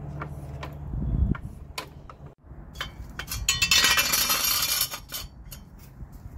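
Metal hand tools clinking and rattling as they are handled, with a loud stretch of dense metallic clatter about three and a half seconds in. A steady low hum stops about a second in.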